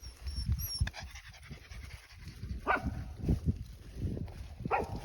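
Australian Shepherd panting in quick, irregular breaths, with two brief high cries about midway and near the end.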